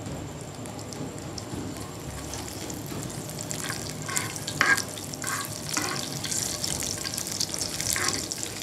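Cumin seeds frying in hot oil in a metal kadhai for a tadka: a steady sizzle with fine crackles. A metal spoon stirs and scrapes the pan several times about halfway through and again near the end.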